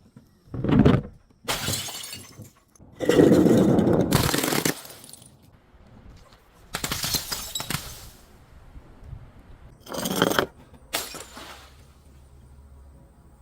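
Glass bottles breaking and shattering in a series of about six separate crashes, the loudest and longest about three seconds in.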